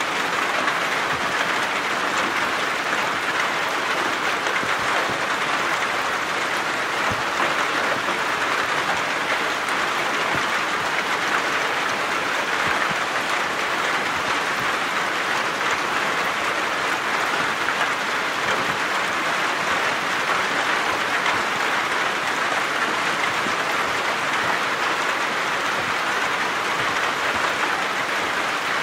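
Steady rain falling on the hut's corrugated metal roof, a continuous even patter.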